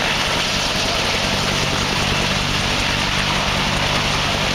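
AH-1 Cobra attack helicopter hovering low and settling toward the ground, its rotor and turbine running with a steady, even noise. Rotor wash blows across the ground.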